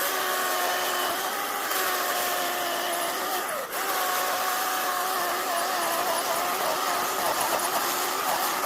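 Ryobi 18V cordless chainsaw running with its electric motor whine steady while the chain cuts into a tree trunk; the pitch wavers under load and dips briefly about three and a half seconds in before recovering.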